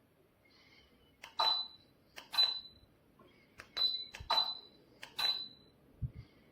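Button clicks, each answered by a short high beep, five times in about four seconds: a remote control being pressed and the ceiling fan's receiver beeping to confirm each command. A soft low thump comes near the end.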